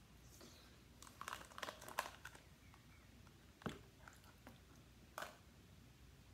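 Faint eating sounds: a plastic spoon clicking against a clear plastic dessert cup and quiet mouth sounds, with a cluster of small clicks and crackles a second or two in and two single sharper clicks later.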